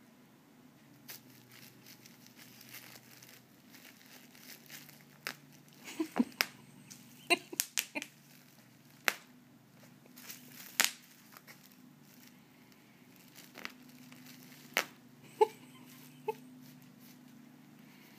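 Plastic bubble wrap crinkling under a cat's paws and a hand, with scattered sharp pops and clicks. The pops come in a cluster about six to eight seconds in, and a few more come later.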